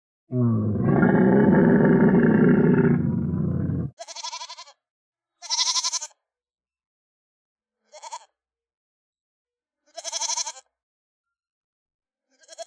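A long, loud animal call, lasting about three and a half seconds, then a series of short, high-pitched wavering calls with silence between them, about every two seconds.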